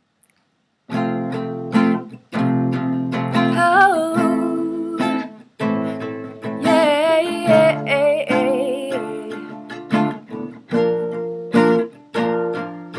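Acoustic guitar strummed in a steady rhythm of chord strokes, starting about a second in. A woman's wordless singing with vibrato rides over it twice in the middle.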